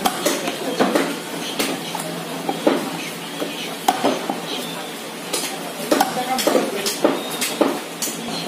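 A butcher's knife working goat meat on a wooden chopping block: irregular short knocks and scrapes of blade and meat against the wood.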